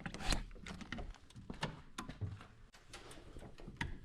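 Irregular sharp clicks and knocks, about ten of them spread unevenly, like small objects being handled or bumped.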